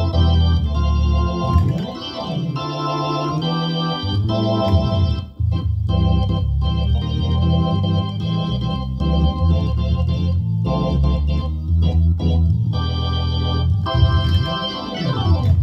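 Korg Nautilus workstation keyboard playing an organ sound: sustained chords over a moving bass line, cutting off sharply near the end.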